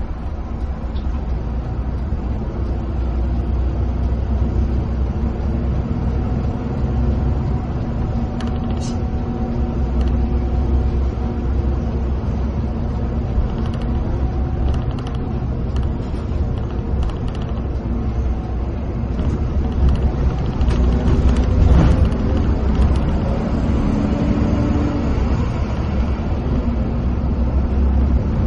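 Coach bus engine running at cruise with the steady rumble of its tyres on the road, heard from inside the driver's cabin. The engine note shifts in pitch a few times.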